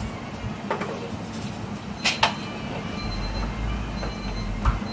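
A spatula knocking and scraping in a metal frying pan on a gas range: a few sharp clinks, a quick pair about two seconds in, over a steady kitchen hum.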